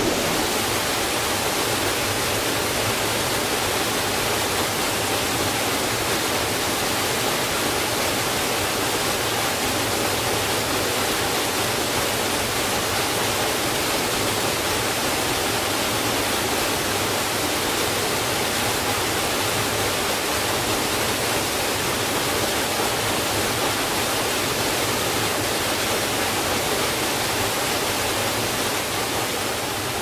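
Waterfall pouring down a rock gorge into a plunge pool: a steady, even rush of falling water, starting to fade out near the end.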